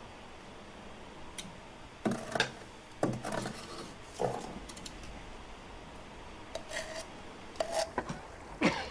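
Scattered short scrapes and rubs, about half a dozen over several seconds, as soot is scraped up by hand at a coal-fired boiler furnace.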